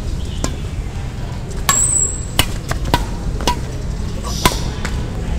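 Badminton rackets hitting a shuttlecock in a rally: a quick series of sharp pops, about six of them, over a steady low rumble.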